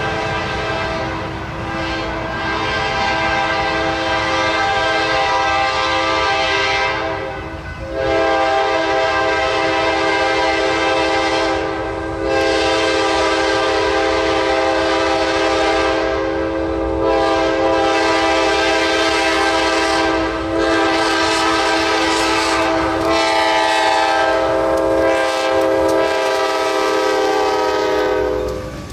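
Freight locomotive's multi-note air horn sounding a series of long blasts with short breaks as the train approaches, over the rumble of the train. Near the end the horn chord drops slightly in pitch as the locomotive passes.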